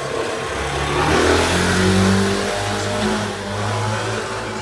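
A motor vehicle passing close by on a wet street, its engine accelerating, with tyre hiss from the wet road; it is loudest about one to two seconds in and then eases away.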